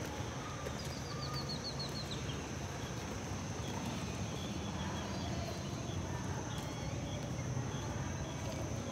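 Outdoor night ambience: a steady low rumble with a quick run of about eight short high chirps about a second in, and a few faint chirps scattered after.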